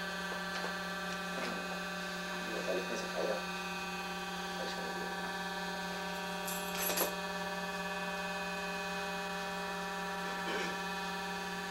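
Steady electrical hum with a buzzy overtone, under faint low voices and a brief rustle about seven seconds in.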